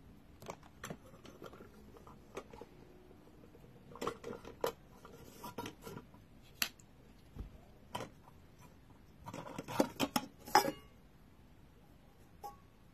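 Rice cooker parts being handled: the lid clicking and the plastic steamer tray and metal inner pot knocking and clinking as they are taken out, in scattered clicks with a busier run of clatter about ten seconds in.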